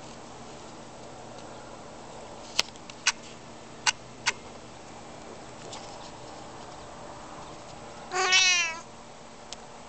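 Tortoiseshell cat giving one short, surprised meow that falls in pitch, about eight seconds in. A few seconds in, four sharp clicks.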